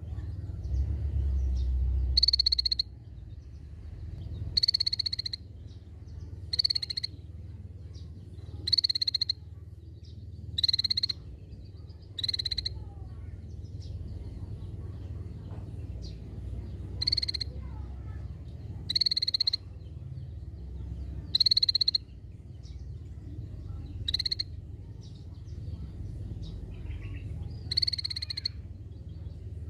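Cucak bersisik (scaly-breasted bulbul) giving short, buzzy, rattling calls, each about half a second long, repeated about every two seconds with a couple of longer pauses. A steady low hum runs underneath.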